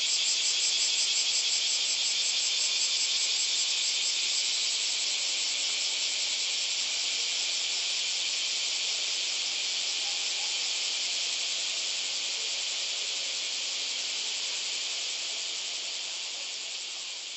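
Cicadas in full chorus: a loud, steady, shrill buzzing drone with a fine rapid pulse, fading out near the end.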